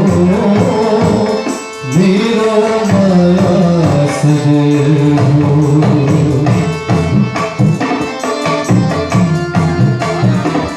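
Nepali folk song: a sung melody over hand-drum accompaniment, with a short break in the music about two seconds in.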